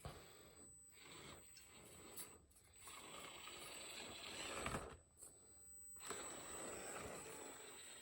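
Faint whir of a small 1/24-scale SCX24 crawler's 50-turn brushed motor and drivetrain, with its tyres scraping and rubbing over the course. It runs in stop-start stretches with short pauses between them.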